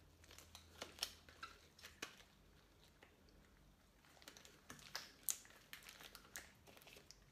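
Near silence with faint, scattered soft ticks and rubbing of latex gloves being pulled on and smoothed over the hands and wrists.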